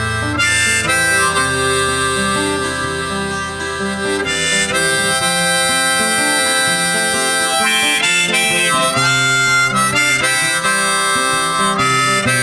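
Background music: an instrumental break of a pop-rock song, with a harmonica solo over guitar and bass.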